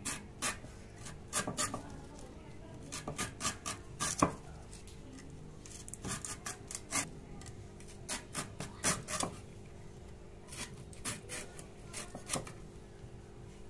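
Green jackfruit's spiny rind being sliced off against a boti blade: short scraping cuts come in irregular clusters of a few a second, with the sharpest one about four seconds in.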